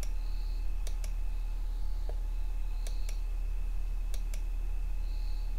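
Sparse clicks at a computer, mostly in quick pairs about a second apart, over a steady low electrical hum.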